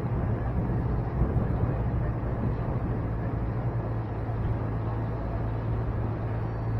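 A moving vehicle's engine running at a steady speed: a constant low hum under an even rushing noise.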